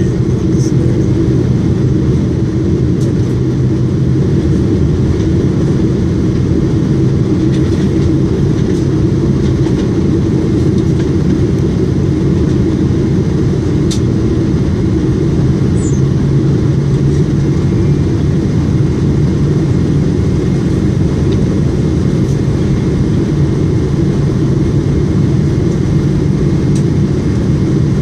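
Steady cabin noise of a Boeing 777 on approach to land: a deep, even rumble of the GE90 turbofan engines and airflow, heard from a window seat beside the engine.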